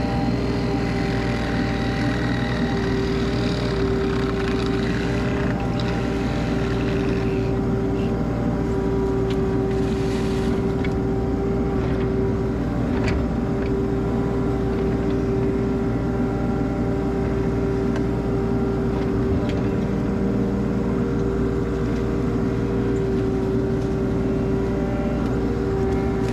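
Mini excavator's diesel engine running steadily under the operator, with a steady tone over it while the boom and bucket are worked.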